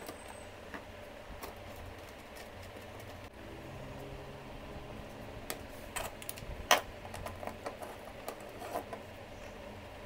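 Plastic parts handled on a tabletop: scattered light clicks and knocks in the second half, one louder knock about two-thirds of the way through, over a steady low hum.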